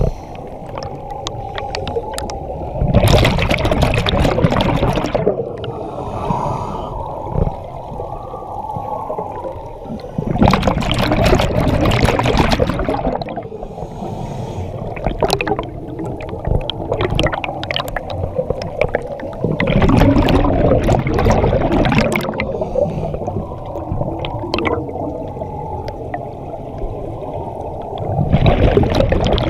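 Scuba regulator breathing heard underwater: four long rushing exhalations of bubbles, each lasting two to three seconds and coming about every eight or nine seconds, with a steady muffled rumble of water between them.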